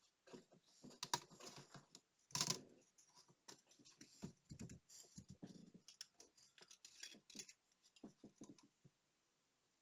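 Small parts of a digital wristwatch being handled with tools at a workbench: a run of light clicks, taps and scrapes, the loudest scrape about two and a half seconds in, stopping about a second before the end.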